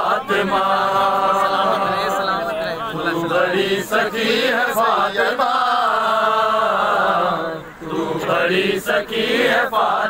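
Men's voices chanting a devotional refrain together, in long, drawn-out, wavering notes, with a short break about eight seconds in.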